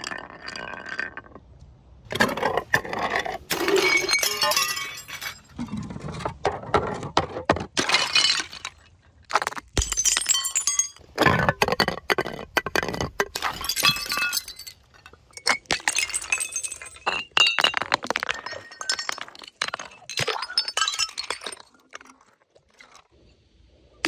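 Glass bottles and a glass jar rolling down stone steps one after another, clinking against the slabs and shattering into shards. Several separate runs of clattering and breaking glass.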